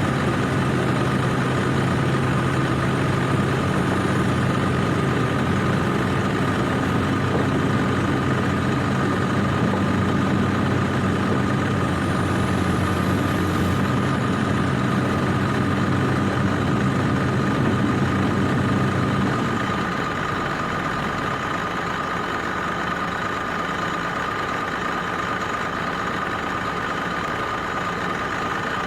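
Heavy diesel engine of earthmoving equipment running steadily, with a constant high whine over it. About two-thirds of the way through, the low engine note falls away and the sound gets a little quieter.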